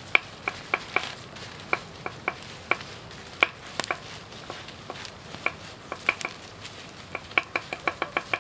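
Knife slicing garlic cloves on a wooden cutting board: sharp taps of the blade on the board at an uneven pace, coming faster near the end.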